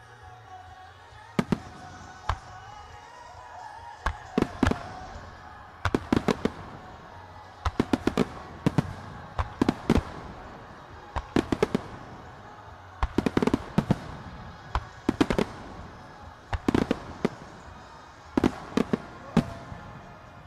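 Aerial firework shells of a starmine barrage bursting in quick clusters: sharp bangs of two to five at a time, a cluster every one to two seconds, over music played alongside the show.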